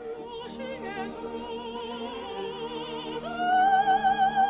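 Orchestral underscore of a 1940s radio musical drama, soft held notes with vibrato. About three seconds in, a high wavering melody note swells in and grows louder.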